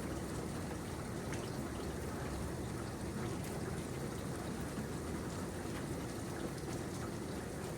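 Steady rain falling, an even hiss of drops with faint scattered individual drop ticks.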